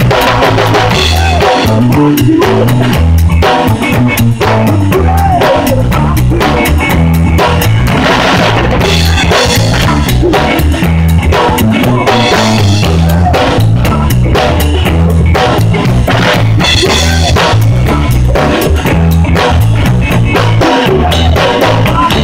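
Live rock band playing a steady beat, with the drum kit close and loudest: kick, snare and cymbals over guitar and other instruments.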